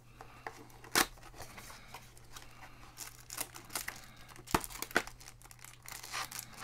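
Baseball card pack wrappers being torn open and crinkled, with scattered crackling and rustling. There is a sharp snap about a second in and two more a little past halfway.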